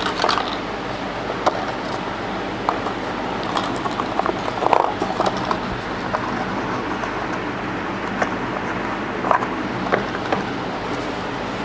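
Steady mechanical hum of background room noise, with scattered light clicks and taps from small objects being handled: the SIM ejector tool and the phone.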